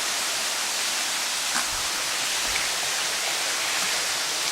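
Steady rush of stream water and waterfalls, an even hiss with no pitch to it. A few soft low thumps come around the middle.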